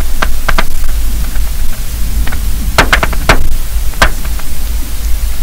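Hydrophone recording under lake ice: irregular sharp snaps and clicks, several in quick clusters, over a steady low hum. The snaps have little energy at the bottom end, and it is not settled whether they are ice artifacts or the unexplained 'snapping popping' sound sought in the lake.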